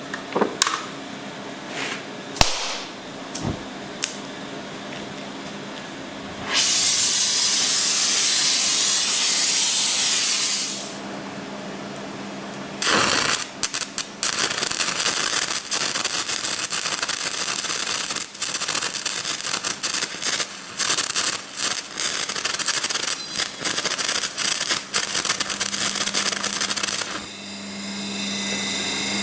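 Stick welding with a hardfacing electrode on a steel power-hammer die: the arc crackles and sputters for about fourteen seconds in the second half. Before it come a few sharp knocks of steel on the bench and a loud steady hiss lasting about four seconds.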